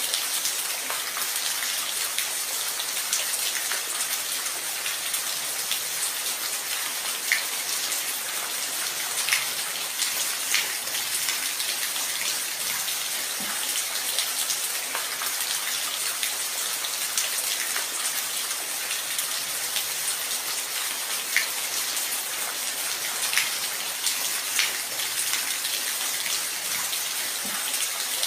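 Steady rain falling in an even hiss, with single louder drops clicking every few seconds.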